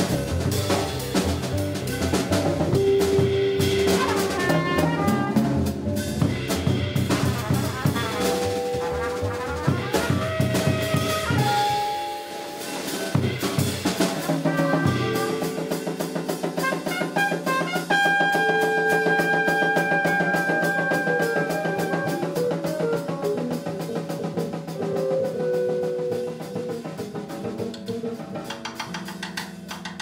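Live jazz quartet playing: trumpet over drum kit, upright bass and archtop guitar. The trumpet holds long notes about two-thirds of the way through, and the band grows quieter near the end.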